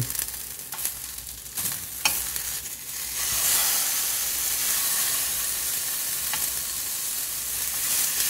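Salmon fillets frying in a non-stick fry pan with no oil, a steady sizzle, with a few light clicks of metal tongs as the fillets are turned. The sizzle gets louder about three seconds in, as the first fillet goes down on its unseared side.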